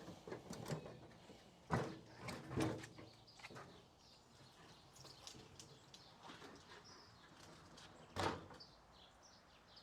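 An outdoor grill being moved back into place: a few hard clunks and scrapes about two seconds in and again near the end, with smaller knocks between them. Birds chirp faintly in the background.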